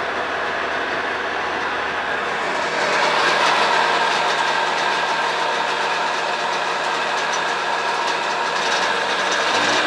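Sea-Doo 787 two-stroke twin-cylinder engine of a 1996 Challenger jet boat running steadily, freshly started. It gets a little louder about three seconds in.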